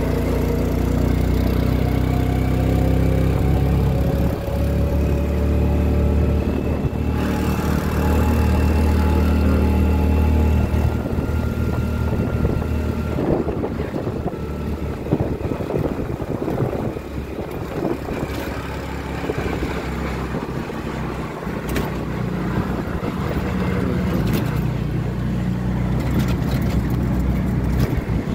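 Tuk tuk under way, its motor running with a steady low note and road and wind noise. From about a third of the way in the note gives way to rougher rumbling and rattling knocks for several seconds before the steady running returns.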